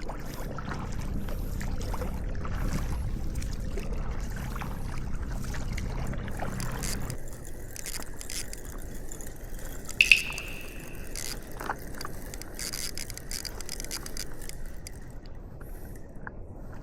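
Water sloshing and trickling around a stand-up paddleboard, with small scraping handling noises and one sharp knock about ten seconds in.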